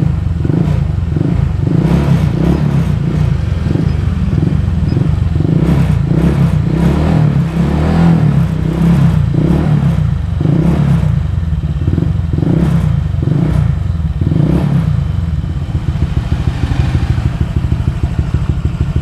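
Honda Click V2 scooter engine running through an aftermarket JVT V3 exhaust pipe, blipped repeatedly in short pulses about once or twice a second for most of the time, then settling to a steadier run near the end.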